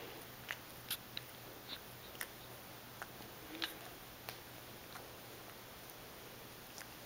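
Calico cat licking and grooming a rabbit's head: soft, irregular mouth clicks, about one or two a second.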